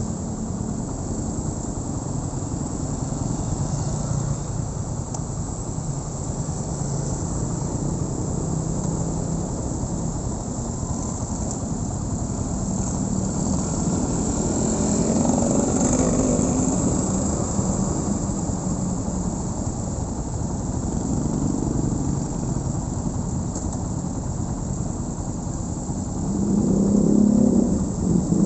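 Honda Win 100 motorcycle being ridden, its small single-cylinder four-stroke engine running under steady wind and road noise. The engine note swells around halfway through and again near the end.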